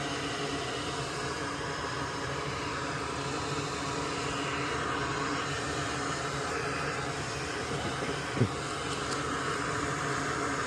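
Steady fan-like hiss of blowing air during soldering work on an oven control board, with a faint hum under it. A brief pitched blip stands out about eight seconds in.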